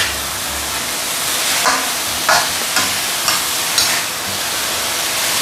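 Chopped Chinese chives sizzling in hot oil in a wok over high heat. A metal spatula scrapes and knocks against the pan about twice a second as they are stirred.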